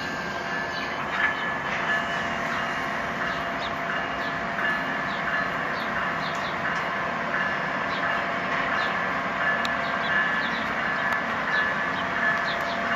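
A train running through the station: a steady rolling noise with short high squeaks and ticks that come again and again.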